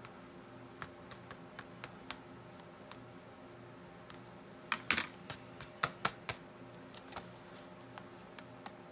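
Light clicks and taps of small crafting supplies handled on a tabletop, scattered at first, then a quick run of louder sharp clicks about five seconds in.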